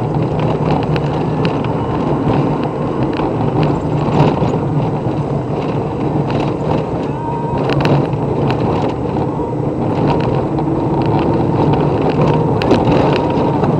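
A car's engine and road noise heard inside the moving car's cabin: a steady low drone with scattered short clicks and knocks.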